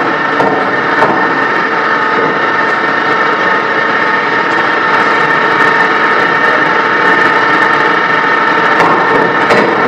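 Steady, loud drone of forge-shop machinery, with a few light knocks near the start and near the end.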